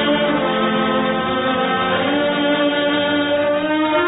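Orchestral music with long held chords, a slow closing theme for a radio drama.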